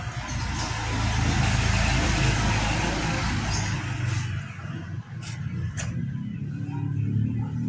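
Electric arc welding on a steel gate frame: the arc gives a dense crackling hiss, loudest in the first half and weaker later, over a low steady hum.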